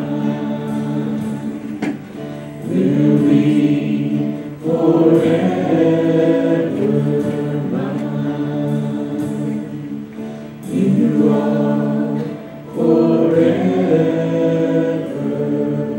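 A worship team of several voices singing a hymn together in harmony, backed by a live band, in long held phrases with short breaks between them.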